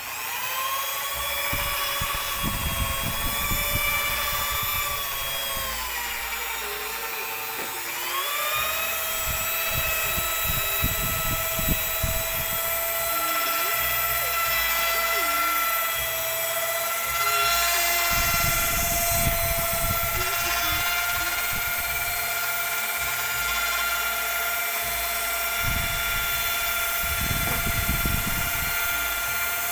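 Handheld electric drill with a mixing shaft running steadily in a bucket, stirring thick homemade dishwashing liquid until it thickens. It starts up right at the beginning, and its whine sags in pitch about six to eight seconds in, then picks back up and holds.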